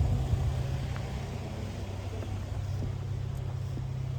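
Steady low rumble of car traffic on the street.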